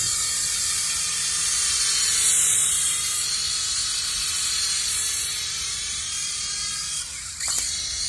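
The small electric rotor motors of a V-Max HX715 mini infrared RC helicopter whirring steadily in flight, with the pitch wavering slightly as the throttle changes. A brief click comes near the end.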